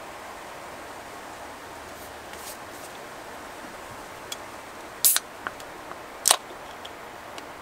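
A drink can's pull tab being worked open: a few small metal clicks and two sharp cracks a little over a second apart, over the steady rush of a river.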